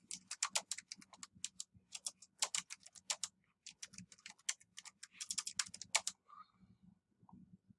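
Typing on a computer keyboard: a quick, uneven run of keystrokes that stops about six seconds in.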